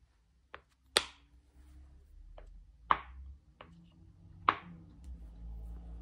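A large black silicone pop-it fidget pendant being pressed by thumb: three sharp pops about a second and a half to two seconds apart, with fainter clicks between.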